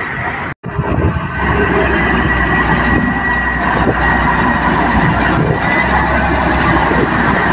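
Loaded Scania dump truck's diesel engine running under load as it crawls over soft mud, a steady heavy rumble with a thin high whine over it. The sound cuts out for an instant under a second in, then comes back louder.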